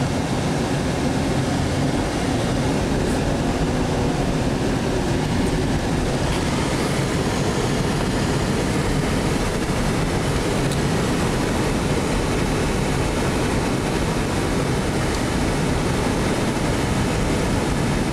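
Steady rumble and hiss of a truck driving along a snow-covered road, heard from inside the cab: engine and tyre noise.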